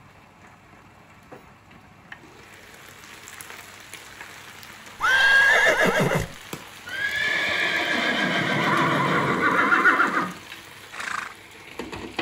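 A horse whinnying twice. The first call is short, about five seconds in. The second is longer and shakier and lasts about three seconds.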